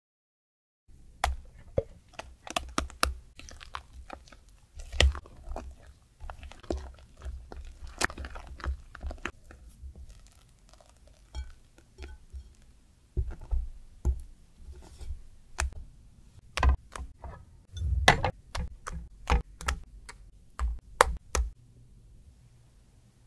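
Silicone spatula folding thick cream-cheese batter in a glass bowl: irregular clicks and knocks against the glass with soft squelching scrapes, easing off for a few seconds midway.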